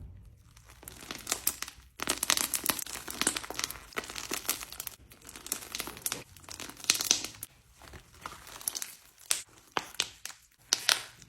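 Slime being squished and stretched by hand: dense runs of small wet crackles and pops, coming in bursts from about two seconds in.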